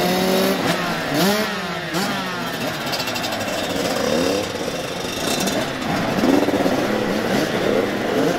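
Several motocross motorcycles running, their engines rising and falling in pitch again and again as the riders throttle and shift.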